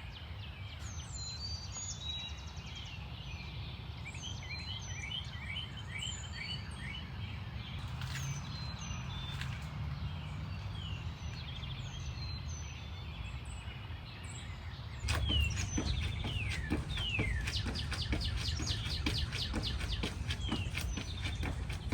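Small birds chirping and trilling over a steady low outdoor rumble. About fifteen seconds in, the sound turns abruptly louder, with many sharp clicks among the bird calls.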